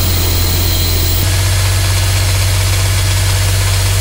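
Dodge Dakota R/T's 5.9 L (360) Magnum V8 running steadily at idle, a continuous engine drone with no clear revving. The engine is being run warm to find a ticking noise, suspected to be a lifter not pumping up, but the tick does not stand out at idle.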